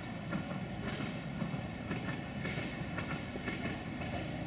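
Train running past on the track: a steady rumble of wheels on the rails with scattered clicks.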